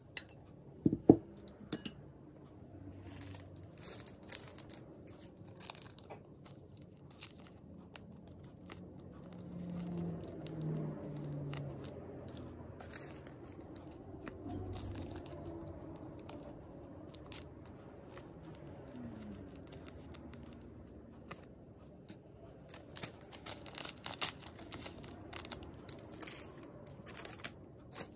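Plastic sauce and seasoning packets handled close to the microphone: crinkling, tearing open and squeezing, with a cluster of crackles near the end. A sharp clack about a second in, the loudest sound, from a dish being set down.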